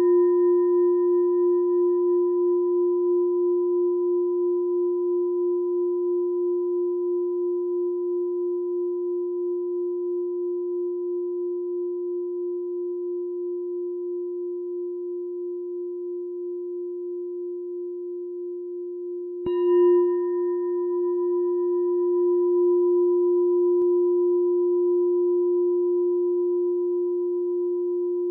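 Meditation bell ringing with a low, pure, wavering tone that fades slowly, then struck again about two-thirds of the way through and ringing on.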